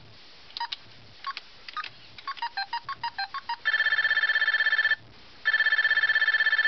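Children's electronic toy telephone: short electronic beeps, a few spaced ones and then a quick run, followed by two rings of a fast-trilling electronic ringtone, each about a second long with a brief pause between.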